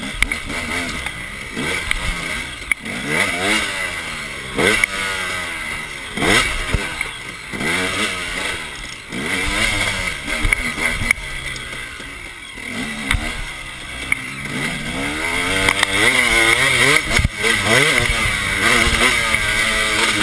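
2009 KTM 250 EXC two-stroke dirt bike engine being ridden hard, its revs rising and falling over and over. Sharp knocks from the bike going over rough ground are heard here and there.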